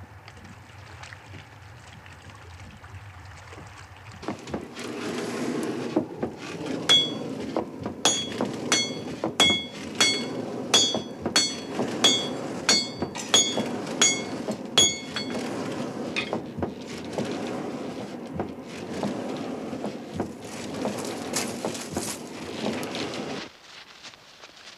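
Blacksmith's hammer striking iron on an anvil: about a dozen ringing blows at a steady pace of roughly one and a half a second, then duller, irregular knocks. Under the blows runs a steady rushing noise that cuts off near the end.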